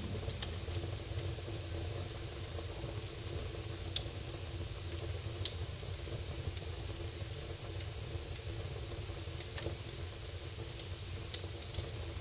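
Fireplace fire crackling: a steady hiss with a few sharp pops scattered through.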